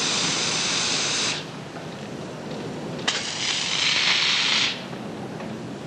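Compressed air foam nozzle hissing as it discharges foam, in two bursts: the first cuts off about a second and a half in, and the second runs from about three seconds in until nearly five seconds in.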